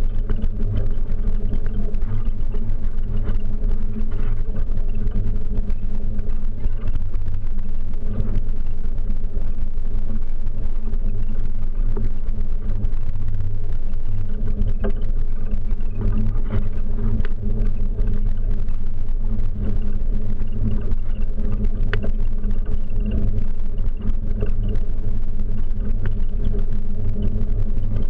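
Steady low rumble of a bicycle ride: wind buffeting and road vibration picked up by a bike-mounted camera rolling over a stone-paved promenade.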